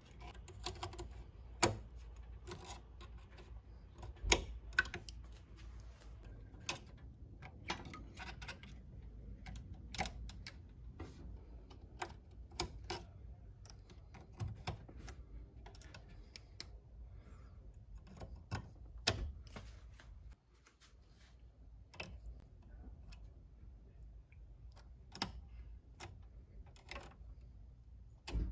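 Irregular light metallic clicks and taps from pliers crimping and pressing crimp connectors onto the terminals of a battery charger's diode plate, over a faint low background hum.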